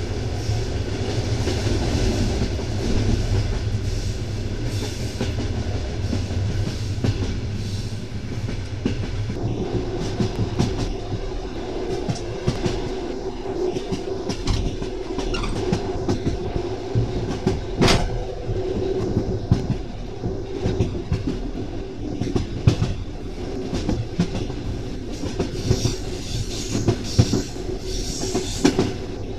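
Train wheels clattering over rail joints under a moving carriage, heard from inside by the window, over a steady low rumble. There is one sharp, louder knock about eighteen seconds in.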